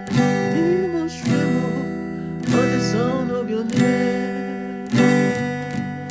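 Music: strummed acoustic guitar chords, struck about once every second and a bit and left ringing, with a wavering melody line over them.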